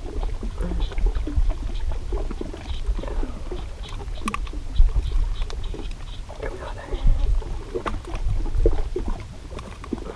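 Wind rumbling on the microphone and small waves lapping at a rocky shore, with scattered clicks of metal pliers working a hook out of a small catfish's mouth; one sharper click about halfway through.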